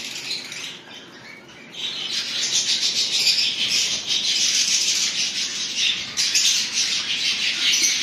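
A roomful of lovebirds chattering with constant high, overlapping chirps. It is thinner at first and becomes dense from about two seconds in.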